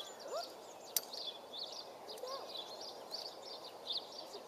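Small songbirds chirping and twittering continuously, with one sharp click about a second in.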